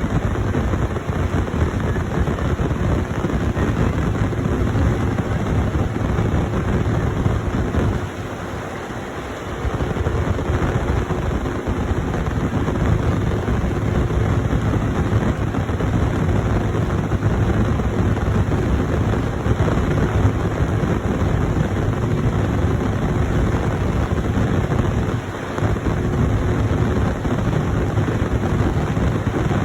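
Heavy diesel farm machinery running steadily: a dense, loud rumble with a faint steady hum, dropping briefly about eight seconds in and again near the end.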